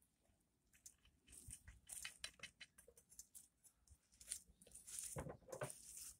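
Faint clicks and rustles of a DeWalt cordless circular saw and its parts being handled, with a louder knock about five seconds in.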